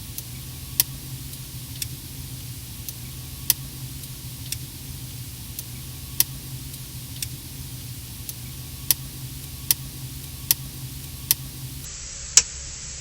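Sharp single clicks inside a car, a dozen or so at irregular intervals about a second apart, with the loudest near the end, over the car's steady low hum.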